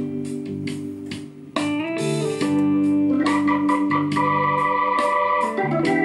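A song with guitar and organ-like keyboard over a steady beat, played through an LG PH1 portable Bluetooth speaker at half volume. The music thins out and drops about a second and a half in, then comes straight back in at full level.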